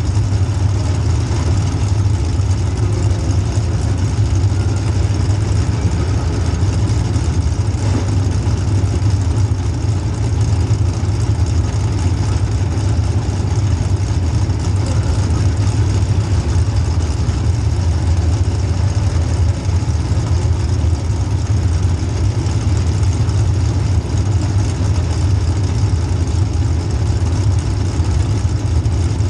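Demolition derby car's small-block Chevy V8 running steadily at a loud, low idle, with no big revs or impacts.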